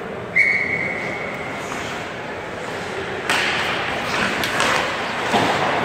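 Referee's whistle, one steady blast of about a second near the start. Then, from about halfway, the clatter of a faceoff: hockey sticks clacking and skates scraping on the ice, with a few sharp knocks.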